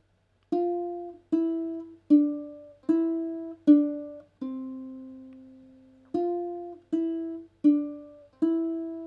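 Ukulele picked one note at a time, slowly and evenly, with each note ringing and fading, working through three-note groups of the F major scale in open position. About two thirds of the way through the first half the pattern pauses on one note that rings out for about a second and a half, then the single notes resume at the same pace.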